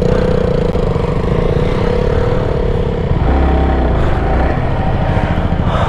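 Motorcycle engines running while riding, with a steady engine note for the first three seconds. About three seconds in the note changes to a deeper rumble.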